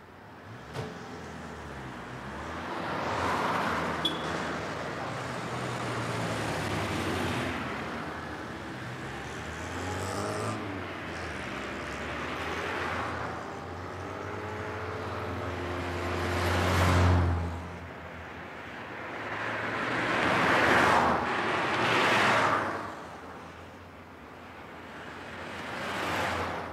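Road traffic: cars passing by one after another, each rising and fading away. One vehicle's engine hum builds and is loudest as it passes, a little past the middle.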